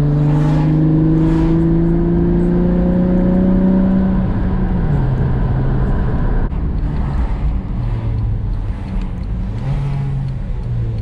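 Acura TL's 3.7-litre V6 accelerating: the engine note climbs steadily for about four seconds, then drops sharply on an upshift, and runs on at lower revs with a few smaller rises and dips.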